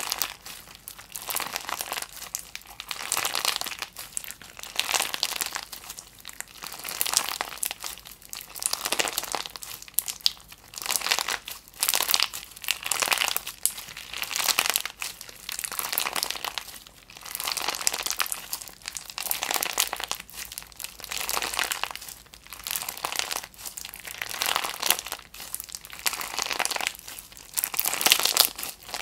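Clear slime packed with flat green and blue beads being squeezed and kneaded by hand, giving a crisp crackle in repeated bursts, about one a second.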